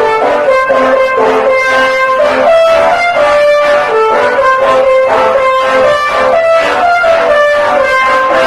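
Loud multi-tone bus air horn of the 'telolet' kind, playing a melody as a steady run of short stepped notes, about two a second.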